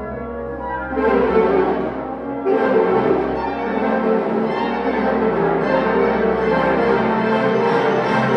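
Symphonic wind band playing a sustained passage; the full band comes in louder about a second in and swells again around two and a half seconds in.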